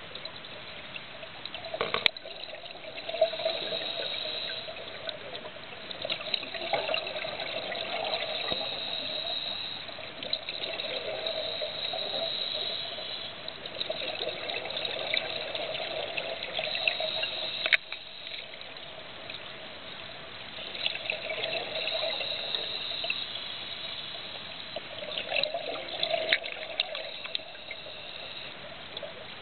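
Scuba diver's regulator breathing underwater: exhaled bubbles gurgle out in bursts every four to five seconds, with a steady hiss between them. Two sharp clicks, about two seconds in and past the middle.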